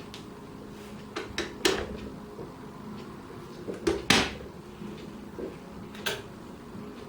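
A series of short plastic clicks and knocks from an electric kettle being handled, about seven in all, the loudest about four seconds in.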